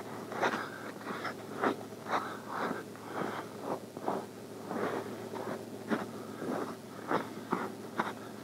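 Footsteps crunching through snow, steady walking at about two steps a second.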